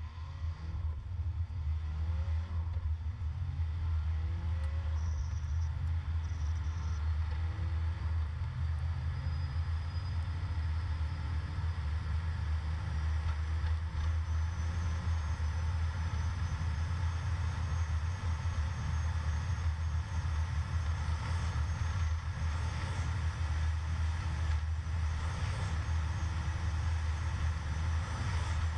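Vehicle engine and road noise heard from inside the cabin: the engine climbs in pitch over the first few seconds as the vehicle speeds up, then settles into a steady low drone at highway speed.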